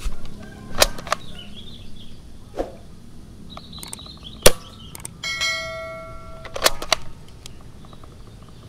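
Sharp clicks and snaps of a toy Nerf dart blaster being cocked and fired, several in a row, the loudest about four and a half seconds in. About five seconds in, a bell-like chime rings for over a second.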